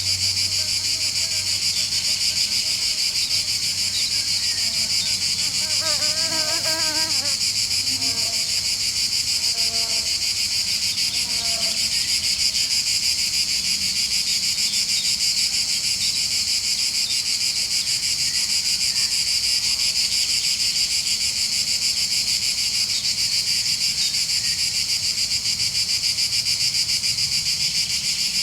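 Countryside insect chorus of cicadas and other insects: a dense, steady, high-pitched pulsing buzz. About six seconds in, a brief wavering call rises through it, followed by a few faint short calls over the next several seconds.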